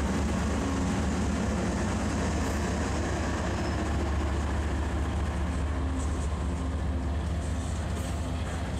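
GE ES44AC diesel locomotive passing close by at low speed, its V12 engine running with a steady deep drone, followed by covered hopper cars rolling past with light clicking from the wheels in the last few seconds.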